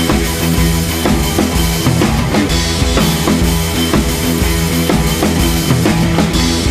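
Music with a drum kit keeping a steady beat over a bass line.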